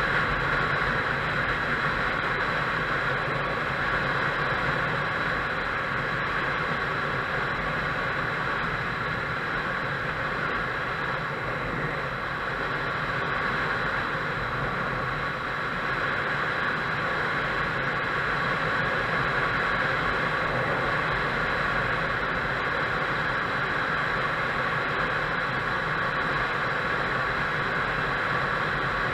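Motorcycle riding at a steady speed: an even engine drone under a steady rush of wind noise on an action camera's microphone, with no change throughout.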